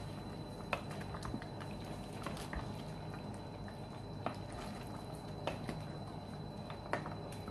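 Wooden spatula stirring a thick, simmering beef spareribs caldereta in a non-stick pot: a steady low bubbling and squishing of the stew, with a few scattered knocks of the spatula against the pot.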